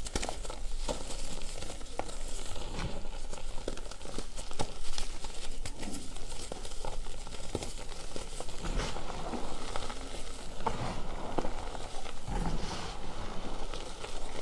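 Pressed gym chalk reforms crushed and crumbled between the hands: a steady run of dry crunching and crackling as the blocks break, with a soft patter of powder and small chunks falling back onto the chalk pile.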